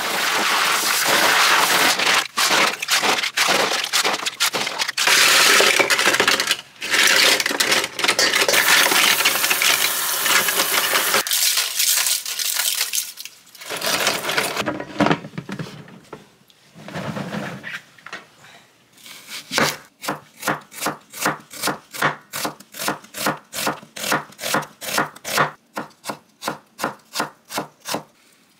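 Hand scraping and rubbing strokes: a long run of dense, continuous scrubbing, then from about two-thirds of the way in a steady rhythm of quick back-and-forth strokes, about two or three a second.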